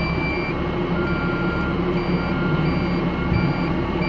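Cat 304E mini excavator's in-cab warning beeper sounding repeatedly, short high beeps with a lower tone coming in between, the alert that the quick coupler is being unlocked. Under it the machine's engine and hydraulics run steadily.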